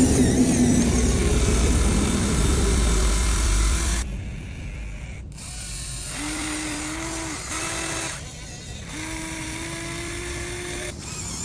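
Huina 1593 RC excavator's small electric motors and gearboxes working: a loud, rough rumbling run for about four seconds, then quieter stretches of a steady motor whine that start and stop several times as the machine's functions are worked.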